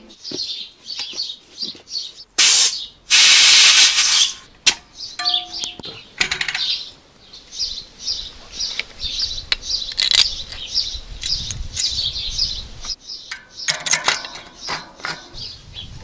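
Small birds chirping in quick, repeated high notes throughout. About two and a half seconds in comes a loud hiss lasting about a second and a half. There are scattered clicks and knocks from handling bicycle parts, busier near the end.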